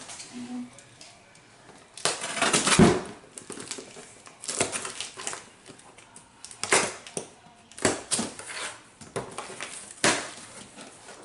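Cardboard box rustling while skincare bottles and packages knock and clatter against each other and the box as they are handled inside it: a series of separate rustles and knocks, the loudest about two to three seconds in.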